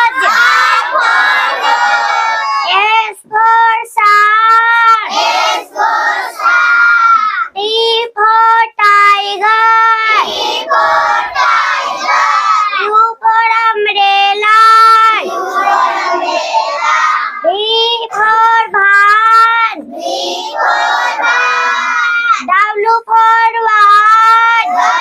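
A child's high voice singing in short, level held notes with brief breaks between phrases, in the manner of a sung alphabet chant.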